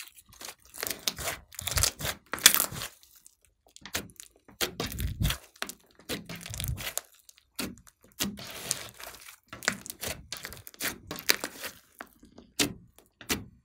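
Thick green slime with small beads mixed in being stretched, pressed and poked by hand, giving irregular crackles and sharp pops as trapped air pockets burst.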